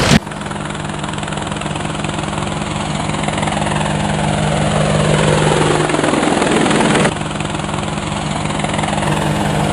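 A quadcopter drone's rotors buzzing with a steady hum. Over it runs a sweep that falls in pitch over a few seconds and breaks off abruptly about seven seconds in.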